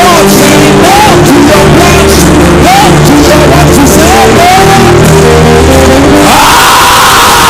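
Live church keyboard music holding sustained chords, with voices crying out in short rising-and-falling calls over it. About six seconds in, a long, loud held cry starts and carries on to the end.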